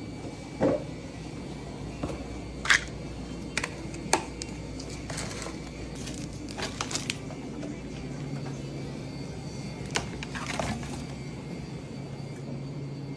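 Eating and food-handling sounds: scattered short crunches, clicks and crinkles over a steady low hum.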